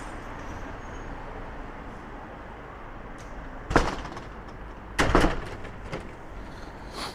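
Steady street traffic noise. A sharp knock comes about four seconds in, and a double knock about a second later.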